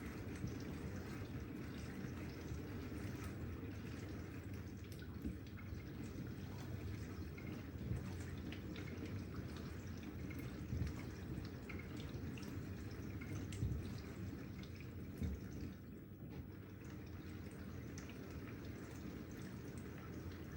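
Miele dishwasher filling and running on its Gentle cycle: a steady wash of water inside the tub, with scattered small drips and ticks.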